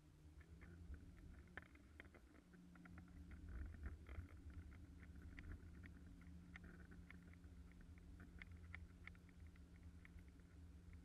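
Boat motor running at a steady speed, a faint low hum whose pitch settles about two seconds in, with scattered light ticks throughout.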